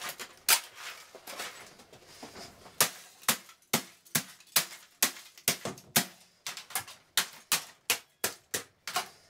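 Hands wrenching and rattling the plastic casing and loose parts of a Rank Arena 3-in-1 TV radio cassette player. From about three seconds in, a golf club strikes it in a fast, steady run of sharp cracks, about two to three a second, smashing the plastic cabinet and exposed circuit boards.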